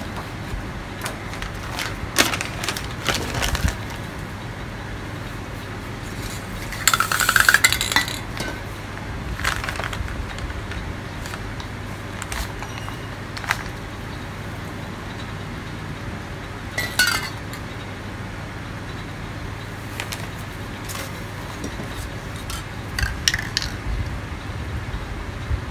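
Metal aerosol spray-paint cans clinking and clacking as they are handled and set down, with brief hisses of spray. A louder one-second burst of noise comes about seven seconds in, and a steady low hum runs underneath.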